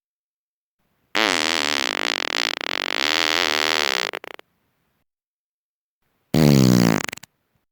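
Two human farts. The first is long, about three seconds, with a pitch that wavers up and down. After a gap of about two seconds comes a second, shorter and louder one.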